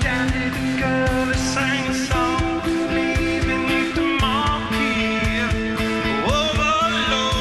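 Live rock band playing: a male lead vocal sings a gliding melody over held guitar and bass notes, with a steady, fast drum beat of about four hits a second.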